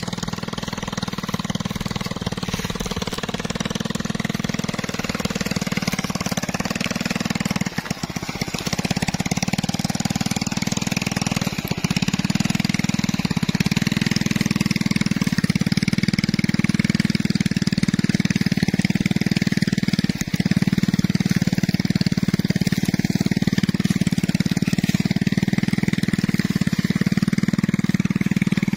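Small motorcycle engine running steadily as it tows a wheeled hand plough through dry soil, working under load, and getting a little louder about halfway through.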